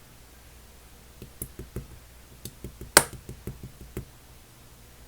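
Runny purple clear slime being pressed and squished by hand, giving a string of soft sticky pops and clicks, with one sharp, louder click about three seconds in.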